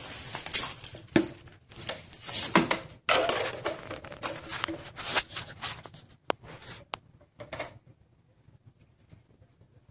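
Rustling and scraping handling noise with scattered sharp knocks, like hard plastic toys being handled and knocked together; it dies down about eight seconds in.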